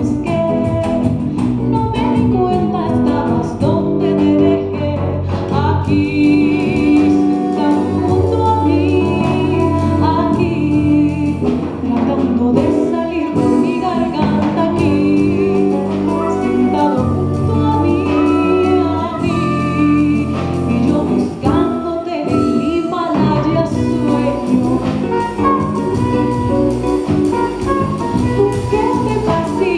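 A woman singing a Colombian-jazz song live, backed by acoustic guitar, electric bass and percussion.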